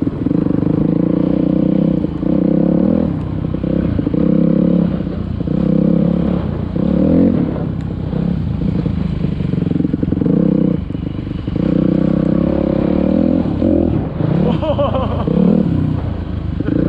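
Dirt bike engine revving up and easing off again and again as the throttle is worked on the ride, the pitch climbing sharply in a couple of quick revs near the end.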